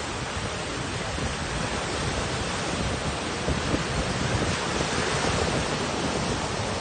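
Sea surf breaking in strong monsoon wind, with the wind buffeting the microphone: a steady rushing noise with gusty low rumbling.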